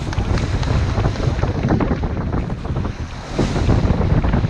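Wind buffeting the microphone over the splash and slap of choppy waves against a moving boat's hull, with a brief lull about three seconds in.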